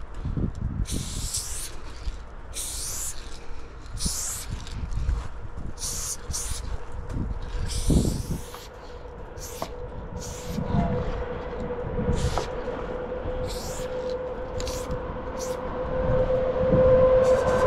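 Aerosol spray-paint can hissing in many short bursts as letters are painted onto a train's side, with low thuds in between. From about ten seconds in, a steady hum with overtones grows louder toward the end.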